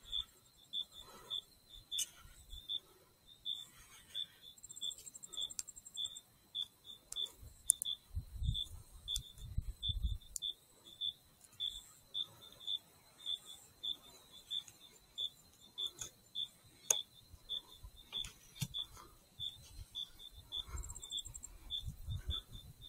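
A cricket chirping faintly and steadily, about two short high chirps a second, with scattered faint clicks and a few low rumbles.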